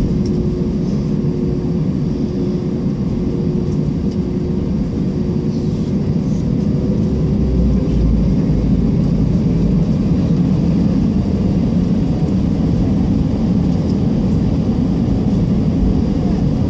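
Jet airliner cabin noise while taxiing: a steady low rumble from the engines at taxi power, with a faint steady hum that fades out about a third of the way through.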